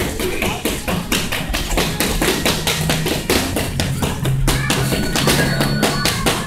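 Rapid, irregular slaps and taps of boxing gloves landing during sparring, several a second, over background music with a steady low bass.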